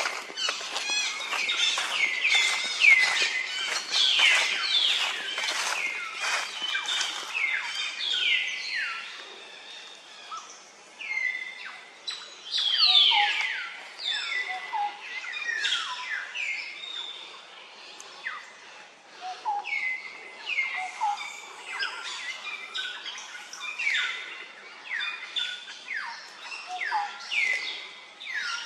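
Many high-pitched chirping calls, each a quick downward sweep, overlapping one another and coming thickest in the first several seconds, then thinning out.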